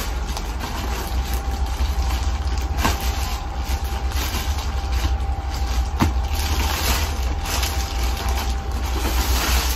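A steady low hum, with a faint high steady tone over it. Now and then there are light knocks and plastic rustling as a bag of polyester batting is handled, strongest near the end.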